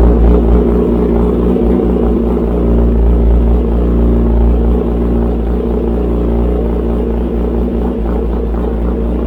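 2020 Kawasaki ZX-10R's inline-four engine running steadily through an SC Project full titanium exhaust, a little louder for the first few seconds and then settling to an even note.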